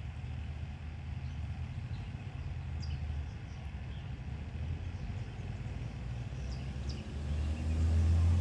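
Low, steady motor drone, as from engine traffic, growing louder about seven seconds in, with a few faint, short high chirps over it.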